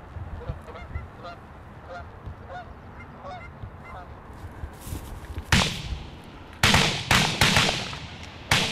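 Flock of geese honking overhead, short calls repeated several times a second, then a volley of shotgun blasts from hunters firing on them, about six shots in quick succession starting about five seconds in and drowning out the calls.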